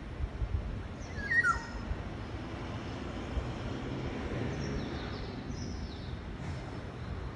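A bird's short whistled call, falling in pitch, about a second and a half in, with a few faint high chirps later, over a steady low rumble of background noise.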